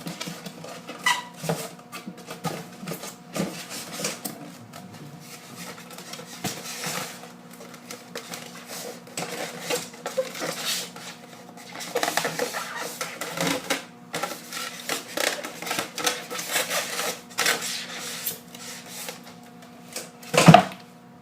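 Packaging being handled as a boxed collectible statue is unpacked: irregular rustling and crinkling with scattered clicks and knocks, and one louder knock near the end.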